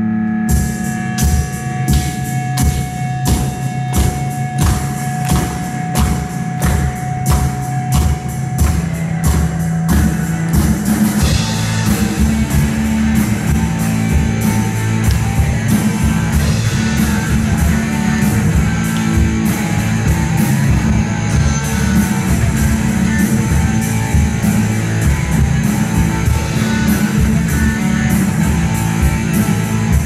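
Live rock band playing with electric guitars, bass guitar and drum kit, driven by steady, regular drum hits. A single guitar note is held for the first several seconds. About ten seconds in, the full band comes in thicker and busier.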